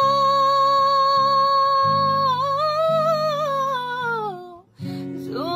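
A Bengali song: a singer holds one long note on the end of a line, wavering near the middle and sliding down before a short break, then starts the next phrase near the end. Acoustic guitar plays underneath.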